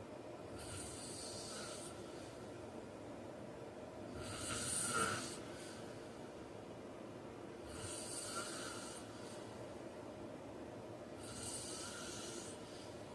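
A sleeping man snoring: four breathy, hissing snore breaths, about one every three and a half seconds, the second one the loudest.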